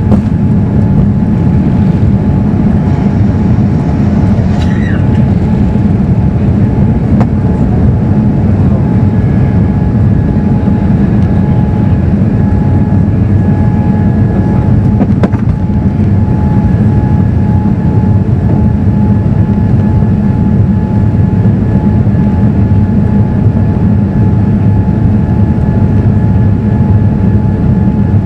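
Boeing 787-9's Rolls-Royce Trent 1000 jet engines at takeoff thrust, heard from inside the cabin as the airliner lifts off and climbs. It is a loud, steady rumble with a steady high whine, and a second, higher whine joins about nine seconds in.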